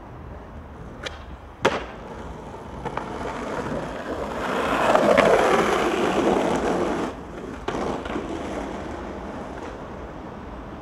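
Skateboard wheels rolling over rough asphalt, swelling and then fading between about four and seven seconds in. Two sharp knocks come earlier, the second louder.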